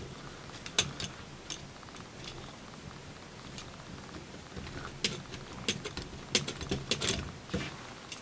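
Plastic parts of a Master Grade Rezel model kit clicking and tapping as they are handled and fitted by hand: scattered small clicks, coming thickest in the second half.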